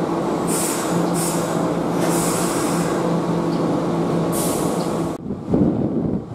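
Keihan electric train at the station platform: a steady hum, broken by several short hisses of brake air. About five seconds in, the hissing stops and a louder low rumble takes over.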